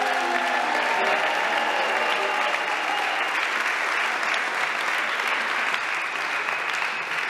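Audience applauding at the end of a song. The last held notes of the accompaniment ring out under the clapping in the first second or two.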